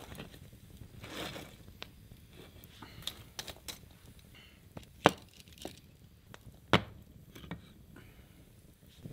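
Small handling sounds: light knocks and crinkling, with a brief rustle about a second in and two sharp knocks, the first about five seconds in and the second under two seconds later.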